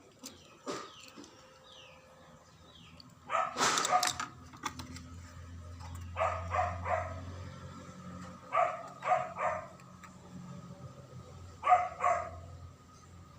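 A dog barking in three clusters of two or three quick barks. Earlier there is a short burst of crackling rustle about three seconds in.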